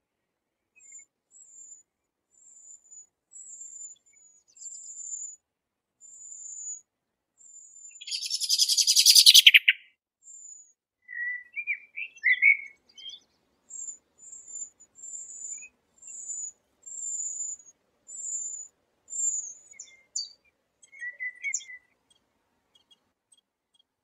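Eurasian penduline tits calling: a long series of thin, high, slightly falling notes, broken about a third of the way in by a loud, harsh burst lasting about two seconds, with a few lower chirps after it.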